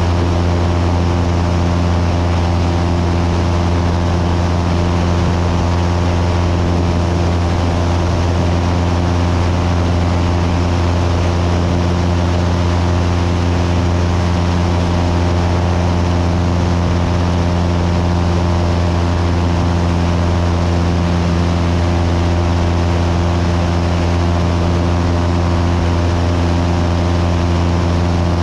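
Cessna 172's piston engine and propeller in steady cruise flight: a loud, even low drone with a hum of steady tones over a hiss of airflow, unchanging throughout.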